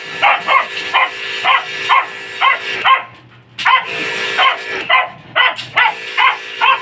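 A dog barking in quick, short, high yips, two to three a second, over the steady hiss of a hose spray wand. The spray cuts out briefly about three seconds in.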